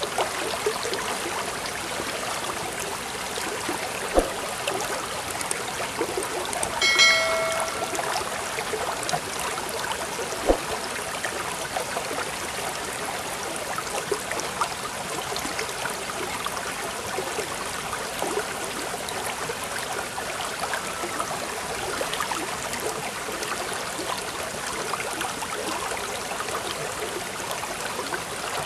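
Steady trickling of a flowing stream, even throughout, with a few faint clicks and one short pitched note about seven seconds in.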